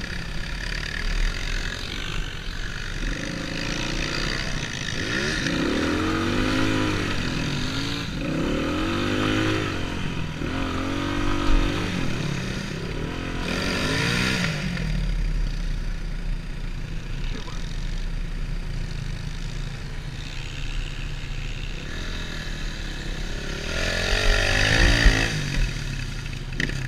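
Enduro dirt bike engine on the move off-road, its pitch rising and falling again and again as the throttle opens and closes, steadier for a stretch in the middle and climbing again near the end.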